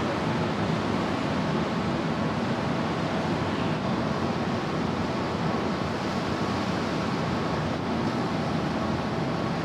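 Steady rush of wind and churned water beside a large car ferry's hull as it pulls away from the quay, under a faint steady hum from the ship's machinery.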